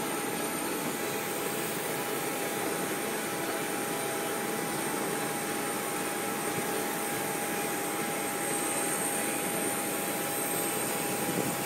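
Steady jet-turbine noise on an airport apron: an even roar with a constant high whine over it.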